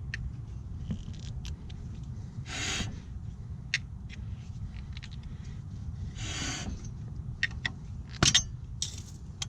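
Flathead screwdriver prying the metal grease cap off a car's front wheel hub: scattered light metal clicks and two short scraping hisses, with a louder click near the end as the cap works loose.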